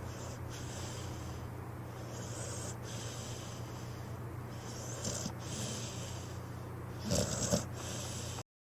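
A sleeping dog snoring, with wheezy, hissing breaths repeating every second or so. There is a louder snort a little after seven seconds, and the sound cuts off abruptly just before the end.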